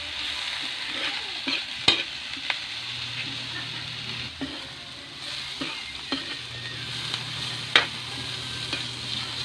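Sliced bitter melon sizzling in hot oil in a metal wok while a metal spatula stirs and scrapes it, with sharp clinks of the spatula against the wok, the loudest about two seconds in and near the end.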